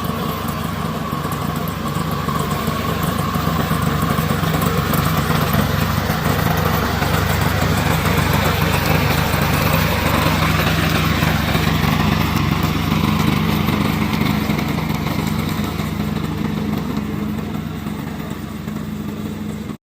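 Remote-controlled slope mower running steadily, a continuous engine drone. It stops abruptly near the end.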